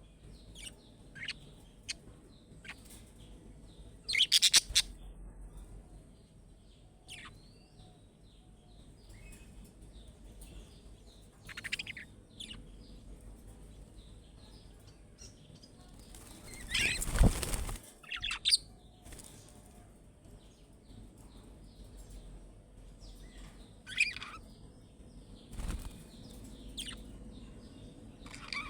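Budgerigars chirping in short, scattered calls, with two loud bursts of wing flapping, about four seconds in and again around seventeen seconds in.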